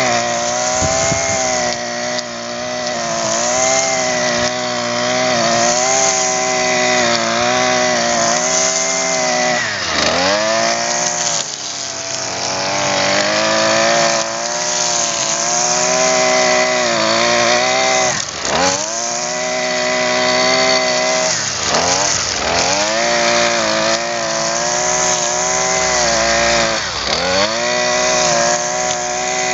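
Husqvarna 128R brush cutter's two-stroke engine running at high revs while its string-trimmer head cuts grass. Several times the engine speed drops briefly and climbs straight back up.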